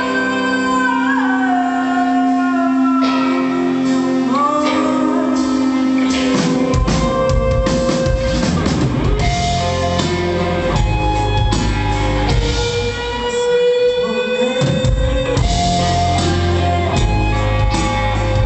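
Rock band playing live: held and gliding guitar notes, then the drum kit and bass come in about seven seconds in and the full band plays on.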